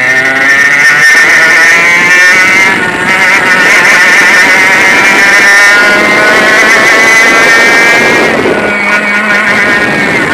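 100cc two-stroke kart engine at racing speed, its note rising as it accelerates and dipping where the throttle is lifted, around six seconds in and again near the end.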